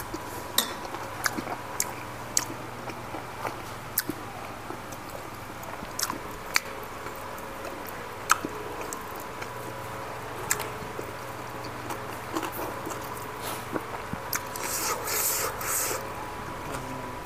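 A person eating: chewing and biting with scattered sharp clicks, and a short run of rustling, crackly noise near the end, over a faint steady hum.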